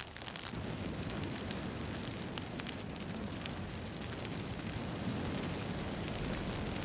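Dry grass fire burning: a steady rushing of flames with scattered sharp crackles, growing louder about half a second in.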